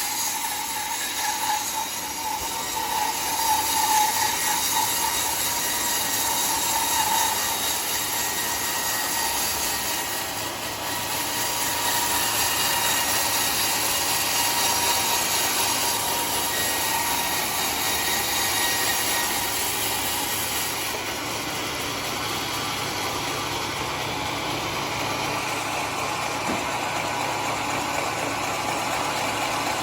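Sawmill saw cutting through a teak log: a steady, dense machine and wood-cutting noise, with a faint whine in the first several seconds.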